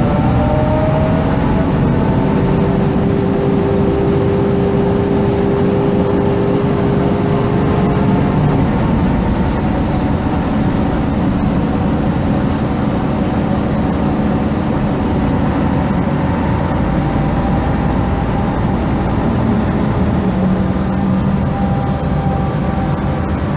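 MAN NG312 articulated city bus under way, heard from inside: steady diesel engine and running noise. A drivetrain whine holds one pitch for several seconds early on, then fades. Near the end, whining tones fall in pitch.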